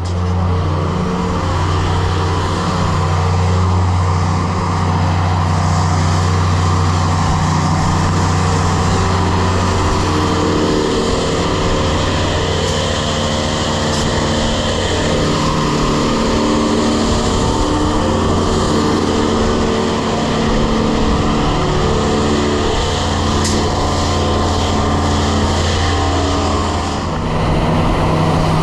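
Grain vac running loudly while vacuuming corn: a steady low engine drone with a dense rushing hiss of air and grain through the machine.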